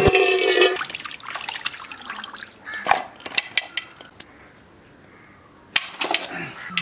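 Water splashing and sloshing in aluminium pots as raw chicken feet are handled in them, with scattered clinks and knocks of the metal pots, the sharpest a little before the end.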